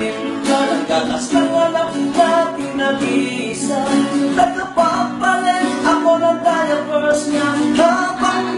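Two acoustic guitars strummed and picked together while a man sings.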